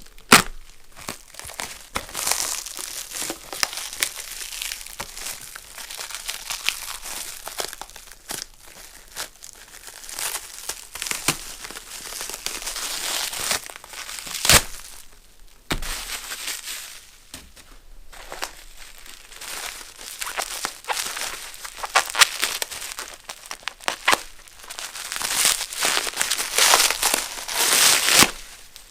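Packing material being unwrapped and handled: continuous crinkling and tearing of wrapping, with a few sharp knocks, louder near the end.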